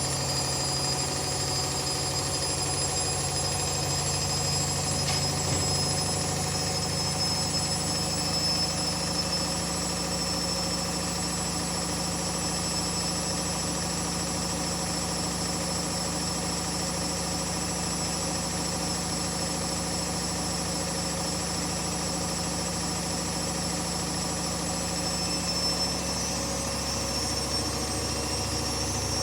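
Hoover Dynamic Next 7 kg washing machine on a high-speed spin, set to 1000 rpm. Its motor and drum give a steady hum and a high whine, and the whine rises slightly near the end.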